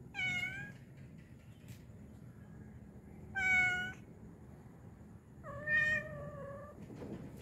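Domestic cat meowing three times, a few seconds apart; the third meow is longer and lower-pitched than the first two.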